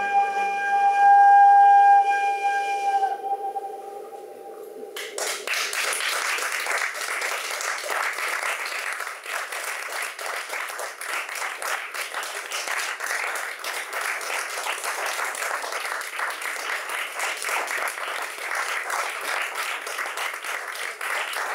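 A sustained high musical note with overtones, the loudest sound here, ends about three seconds in and fades out. Then audience applause starts and goes on steadily to the end.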